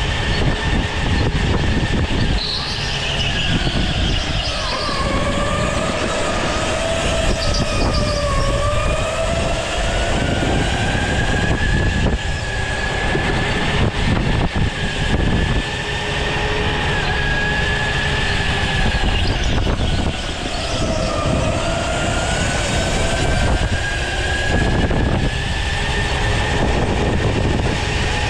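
Go-kart heard from onboard while driving: a whine that rises and falls with speed through the corners, over steady tyre and track rumble.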